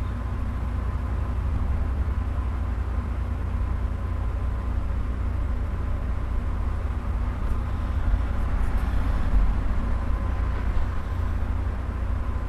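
Steady low rumble with an even hiss over it and a faint steady tone: constant room background noise.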